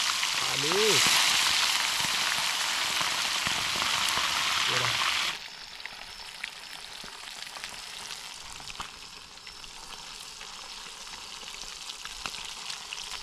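Fish pieces frying in hot oil in a pan, a steady sizzle. About five seconds in the sizzle drops suddenly to a quieter level, with small crackles of spitting oil.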